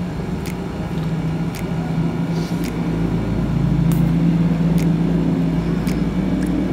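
Short crisp crunches from biting and chewing an Aice Coffee Crispy chocolate-coated ice cream bar, coming roughly once a second, over a steady low hum.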